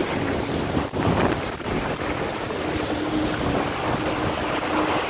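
Water rushing and splashing along the hull of a Laser sailing dinghy planing through choppy water in strong wind, with wind buffeting the microphone. A faint steady hum comes and goes in the second half.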